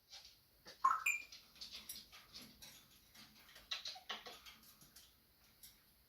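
African grey parrot vocalising: a burst of squeaks and short chirps about a second in, then a rapid run of clicks and scratchy noises that dies away near the end.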